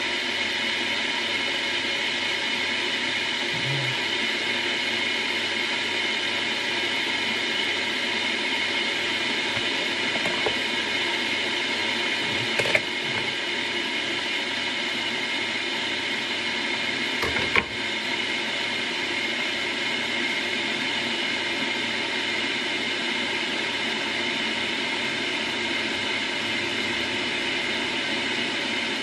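A kitchen appliance running with a steady whirring hiss, with two sharp clicks about 13 and 17½ seconds in.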